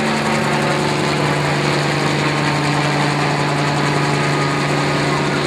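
Bell 47 helicopter flying overhead: its piston engine and two-blade rotor make a steady, even-pitched drone as it moves away.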